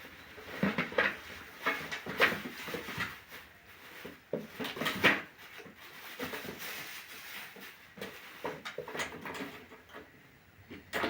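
Plastic fan parts being handled: a run of irregular clicks, light knocks and rustles, loudest about two and five seconds in.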